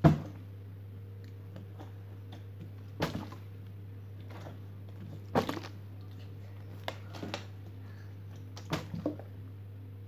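A handful of knocks and thumps from objects being handled, the loudest right at the start and others scattered through, over a steady low hum.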